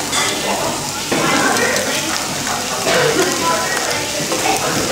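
Frozen pork belly slices sizzling on a foil-lined tabletop grill, a steady hiss under the chatter of a full restaurant.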